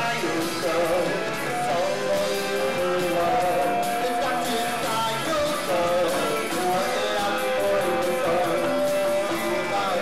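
Live rock band playing, with electric guitars carrying sustained, bending lead lines over drums.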